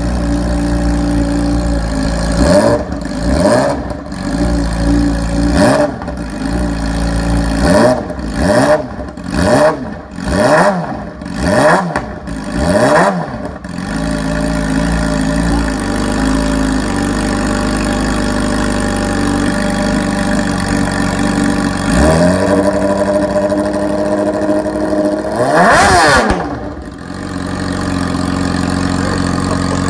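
2017 Yamaha R6's inline four-cylinder engine blipped about ten times in quick succession, each rev rising and falling, then settling to a steady idle. Later come one short rev and a higher one before it idles again.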